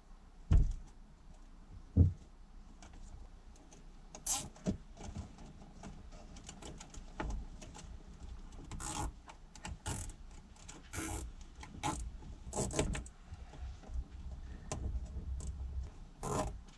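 Handling noise from hands-on work: two sharp low thumps in the first two seconds, then scattered small clicks and rattles.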